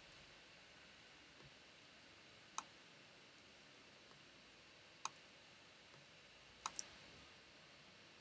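Computer mouse clicks over near-silent room tone: single sharp clicks about two and a half and five seconds in, then a quick double click near the end.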